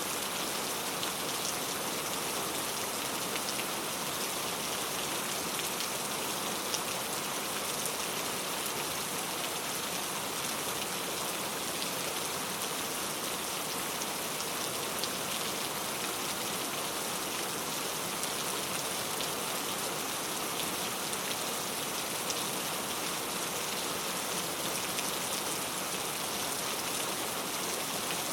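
Steady rainfall: an even hiss with scattered ticks of individual drops.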